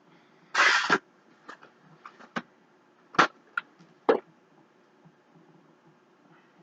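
Objects being handled during an unboxing: a brief rustle about half a second in, then a scattering of light clicks and knocks as items are moved and set down.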